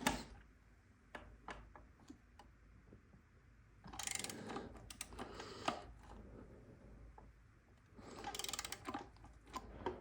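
Ratchet wrench clicking as it works an injector hold-down bolt, in two bursts, about four seconds in and again near the end, with a few single clicks between.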